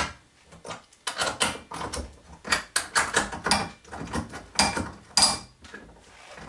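Irregular metal clicks and clinks of steel gunsmithing tools and parts being handled at a barrel vise and action wrench on a workbench. One clink rings out about five seconds in.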